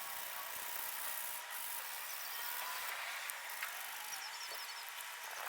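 Faint, steady background hiss with a faint steady tone and a few faint high chirps. No clear tool strokes are heard.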